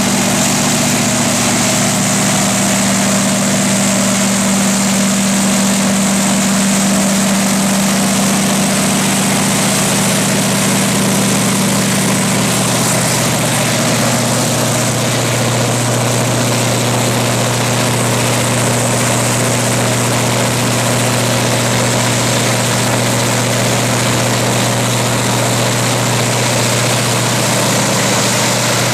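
1020 kW Kohler diesel generator set running steadily and loud: an even engine hum with a hiss of air above it. About halfway through, the strongest part of the hum drops to a lower pitch.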